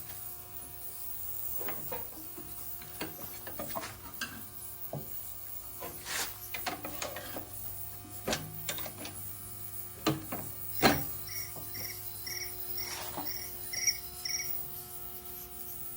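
Scattered clinks and knocks of hand tools and metal parts being handled while taking a tractor apart, the loudest a sharp knock about eleven seconds in, over a steady low hum. A little past the middle, seven short high chirps come evenly, about two a second.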